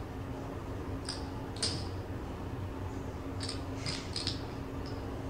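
Casino chips clicking against each other as they are stacked and counted by hand. There are a couple of sharp clicks about a second in and a quick cluster of clicks between three and four and a half seconds in, over a steady low hum.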